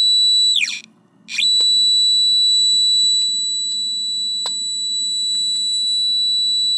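An electronic EMF meter's high, steady alarm-like tone, picking up the diffuser's field. About half a second in it slides down in pitch and cuts out, then sweeps back up about a second later and holds. A few faint handling clicks sit over a low hum.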